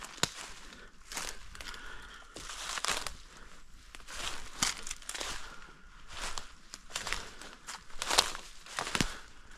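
Footsteps crunching through dry fallen leaves on a forest floor, a step roughly every half second to second at a walking pace.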